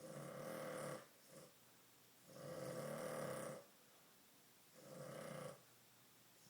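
A sleeping dog snoring like a grown man: three long snores about two seconds apart, with a short faint one just after the first.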